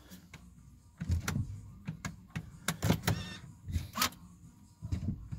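Volvo XC60 electric parking brake motors whirring briefly as the brake is worked from its dash switch, heard from inside the cabin among several knocks and clicks. The brake is operating again after its control unit was repaired.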